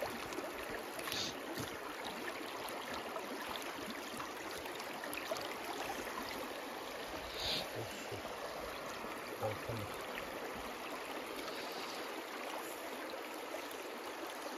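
Shallow stream running over rocks: a steady rush of water, with a few brief faint knocks.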